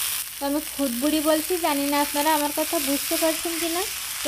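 Wet broken rice being pressed and spread by hand in an oiled iron karahi: a steady gritty hiss. Over it, a melody in short held notes stepping between pitches.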